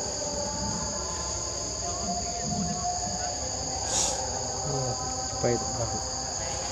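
Steady insect chorus in the forest, a constant high drone in two pitches, with a brief louder pitched sound about five and a half seconds in.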